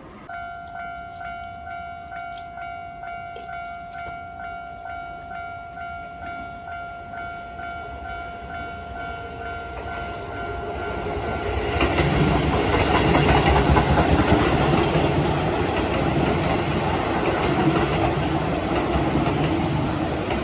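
Japanese level crossing warning bell starts up and rings in a steady electronic pulse about twice a second. About twelve seconds in, an electric commuter train runs over the crossing much louder, its wheels clattering rhythmically over the rail joints and drowning the bell.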